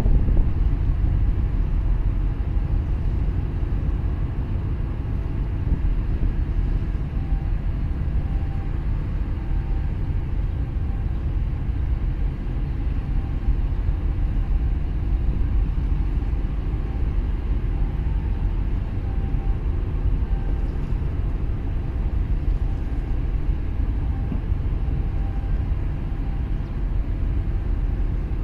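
Steady low rumble of harbour ambience with wind buffeting the microphone, over a faint steady machinery hum.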